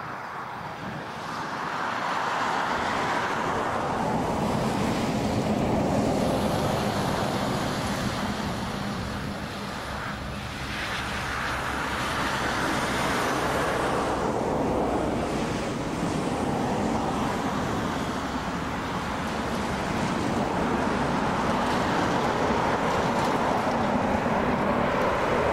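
Jet aircraft engines running at an airfield: a steady rushing noise with a faint high whine, growing louder about two seconds in and then swelling and easing.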